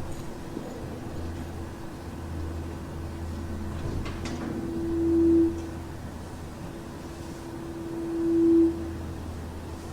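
A low, steady droning hum with a single horn-like tone above it that swells loud twice, about halfway through and again near the end, each time building for about a second and then cutting off abruptly: the kind of unexplained droning sky noise that these recordings capture.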